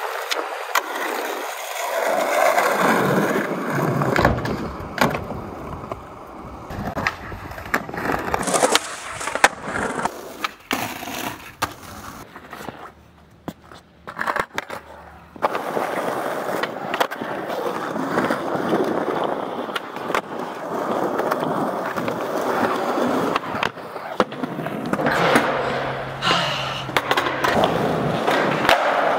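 Skateboard wheels rolling over stone paving and tiles, broken by the sharp clacks of tail pops and board landings.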